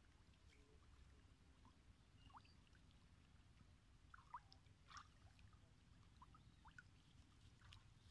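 Near silence: a faint low rumble of outdoor ambience with scattered faint short ticks and chirps.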